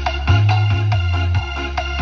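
Electronic dance music played loud through a sound system of horn-loaded subwoofer cabinets and a full-range top box, in a test of the modified box and speakers. A deep bass line holds long notes under a quick beat of about three hits a second.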